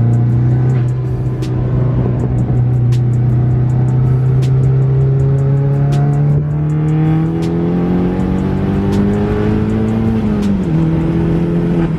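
Chevrolet Cobalt's engine pulling under acceleration up a highway on-ramp, its pitch climbing steadily for about ten seconds and then dropping sharply at an upshift, with another drop near the end.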